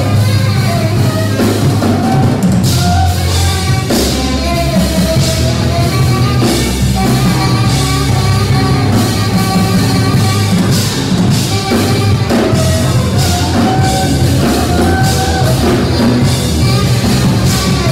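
Live jazz trio playing loudly: tenor saxophone playing melodic lines of held notes over a busy drum kit and a heavily amplified electric stringed instrument.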